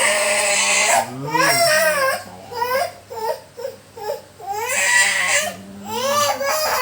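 Small child crying hard in rising and falling wails, with two harsher screaming cries, one at the start and one about five seconds in.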